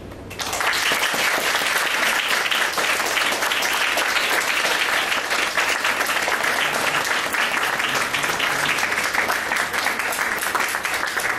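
Audience applauding: a crowd clapping that starts suddenly about half a second in and keeps on steadily, thinning slightly near the end.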